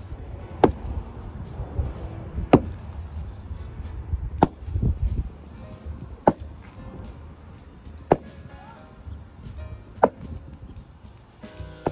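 Axe chopping into tree roots in the soil, six strokes about two seconds apart, each a sharp thwack.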